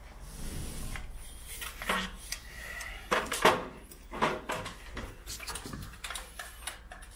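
A short soft rub of a paint roller at the start, then a run of irregular knocks and clatters as the roller pole and other gear are handled and set down. The loudest knock comes about three and a half seconds in.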